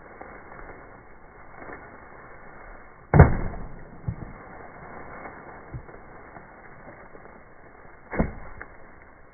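Two sharp knocks about five seconds apart, the first the louder, over faint steady background noise.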